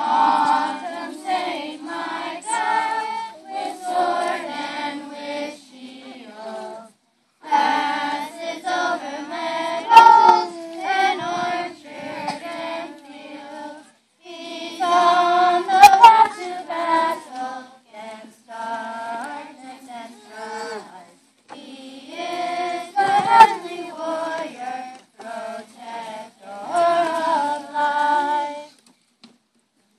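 A group of children singing together, in four phrases of several seconds each with short breaks between them.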